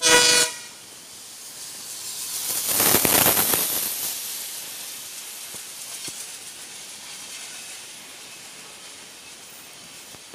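A short train horn blast, then a WDP4D diesel locomotive passes close by on the adjacent track, its noise swelling to a peak about three seconds in, followed by the steady rumble and hiss of its LHB coaches going past.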